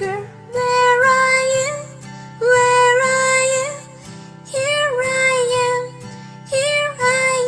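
Children's nursery-rhyme music: a high voice sings four long held notes, each about a second, over a steady simple backing.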